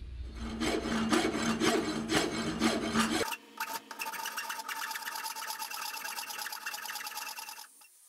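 Hand file rasping across cast bronze in repeated strokes, filing down the cut-off pour stub on the casting. The sound changes abruptly about three seconds in, taking on a ringing edge, and stops shortly before the end.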